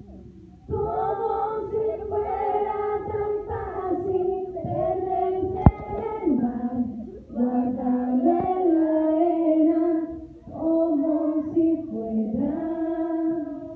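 A woman singing live into a handheld microphone, heard through the venue's sound system. She sings long held phrases with short breaks between them, and there is a single sharp click a little before the middle.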